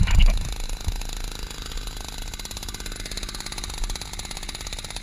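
A fast, even mechanical rattle, with a louder low thump just at the start.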